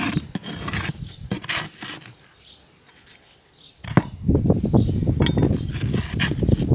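Plastic hand trowel scooping and scraping gritty potting mix in a terracotta trough, with scrapes and taps as the soil is pressed into small plastic nursery pots. It grows denser and louder about four seconds in.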